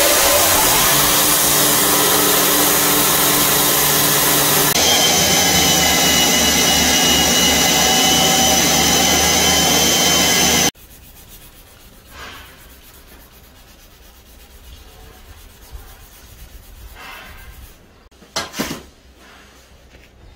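Belt grinder running with a knife's wooden handle scales pressed against the sanding belt: a loud, steady grinding with a high whine. It cuts off abruptly about ten seconds in, leaving quiet background with a couple of sharp knocks near the end.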